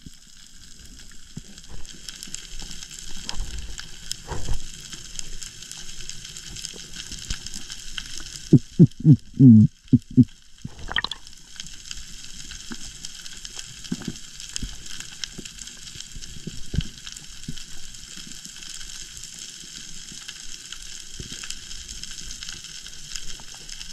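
Underwater reef ambience picked up by a diving camera: a steady crackling hiss. About nine to ten seconds in comes a quick run of about six loud low thumps, then a short rising tone.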